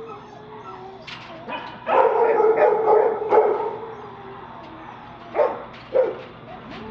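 A dog barking in a shelter kennel: a loud run of barks lasting about a second and a half, then two short single barks about half a second apart near the end.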